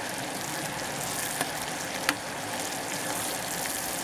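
Sugar syrup boiling hard in a stainless steel pot, a steady bubbling hiss, while a metal spoon stirs it and clinks against the pot twice, the second time louder.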